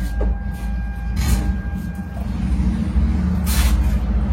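A vehicle's engine idling, a steady low rumble, with a couple of short rustling noises over it.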